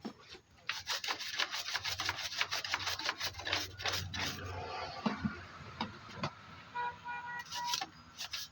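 Quick, repeated rubbing and scraping strokes by hand against a hard surface, like a stiff brush or a file being worked back and forth.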